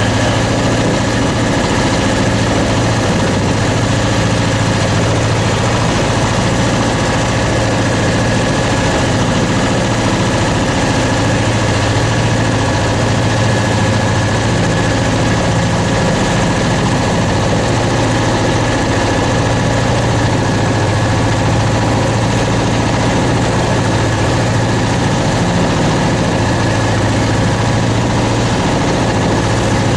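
Fishing boat's engine running steadily, a constant deep hum with no change in speed.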